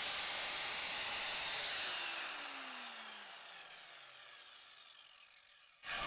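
Evolution R185SMS sliding mitre saw's motor and blade spinning after a shallow pass in a pine floorboard, then winding down with a falling pitch once the trigger is released. The sound fades out about five seconds in.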